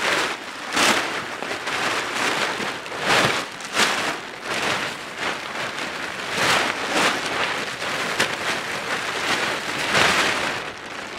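Large plastic tarp being pulled open, unfolded and shaken out, crinkling and rustling in a string of loud swishes as it is handled and spread.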